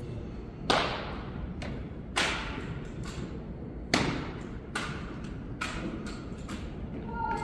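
Sharp slaps and knocks of a solo drill-rifle routine, the rifle being struck, caught and handled, at an uneven pace with a few much louder than the rest.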